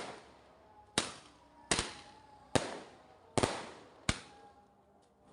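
Fireworks going off: five sharp bangs, roughly one a second, the fourth a quick double, each fading with an echoing tail.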